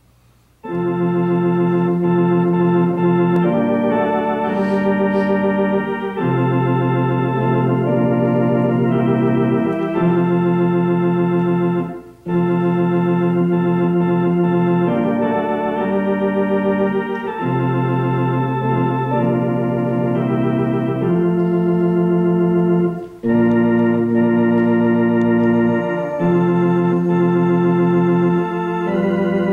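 Organ playing slow, sustained chords that change every second or two, starting about a second in and pausing briefly twice along the way.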